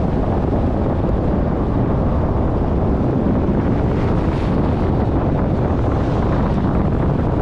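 Steady rushing noise inside a truck's cab: engine and road sound with the heater blowing.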